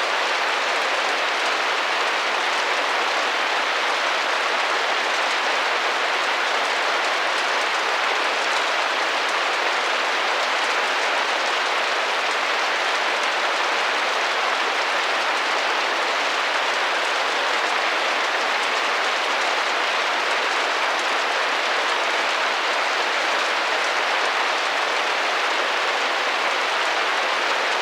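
Steady rain pattering against a window pane, an even dense hiss of drops that holds constant throughout.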